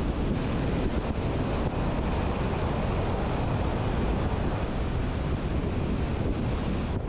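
Steady rush of wind buffeting the microphone of a camera mounted on the roof of a moving vehicle, mixed with the vehicle's road noise.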